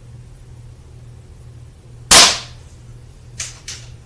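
A Mondial RO71 .177 spring-piston air pistol fires once, a single sharp crack about two seconds in that dies away quickly. About a second later come two faint, quick clicks.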